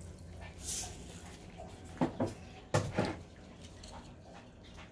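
Candy sprinkles shaken from a plastic shaker jar into a bowl: a brief rattle about a second in. Then a few short squeaky whines, each falling in pitch, around two and three seconds in.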